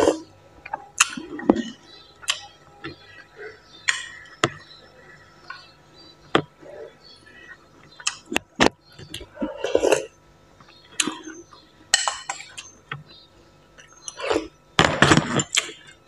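A metal spoon clinking against a bowl of noodle soup again and again, between wet mouth sounds of eating. Near the end comes a loud, dense stretch of chewing.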